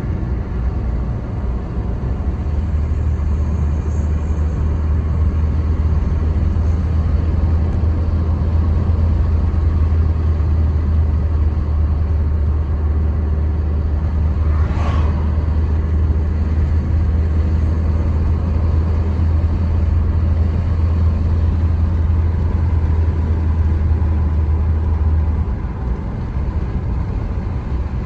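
A car driving: steady rumble of engine and road noise, with a deeper drone that sets in a couple of seconds in and drops away near the end. A brief sharper sound about halfway through.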